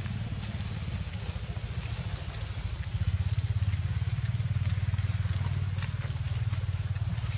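A motor engine running steadily, a low pulsing rumble that gets louder about three seconds in.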